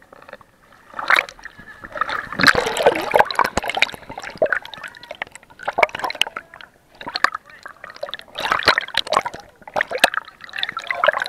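Seawater splashing and sloshing against an action camera at the water's surface, in loud, irregular bursts.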